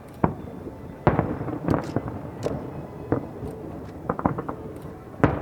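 Fireworks shells bursting: a series of sharp bangs spaced about half a second to a second apart, the loudest about a second in with a ringing tail, and a quick run of smaller pops around four seconds in.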